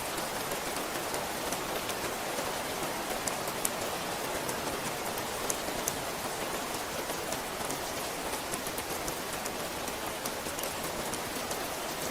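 Steady rainfall: a constant hiss of rain with many small drop ticks pattering on a surface.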